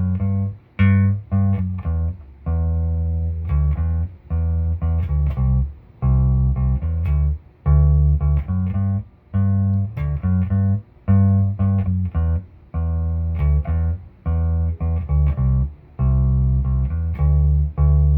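Electric bass played through a Peavey 400 bass head's clean channel into 2x10 and 1x15 speaker cabinets: a simple riff of short plucked notes with brief gaps, repeated over and over.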